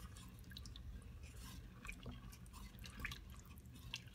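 Wooden spoon stirring rice in stock and wine in a stainless steel Instant Pot inner pot: faint liquid sloshing with small scattered clicks, over a faint steady low hum.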